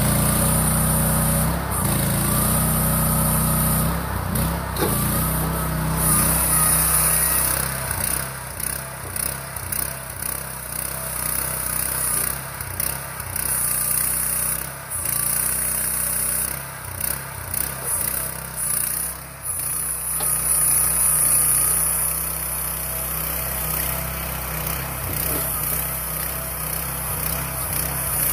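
AGROTK QH12R mini excavator's small engine running steadily under hydraulic load as the upper structure swings and the boom and bucket move, its level dipping and rising as each movement comes and goes.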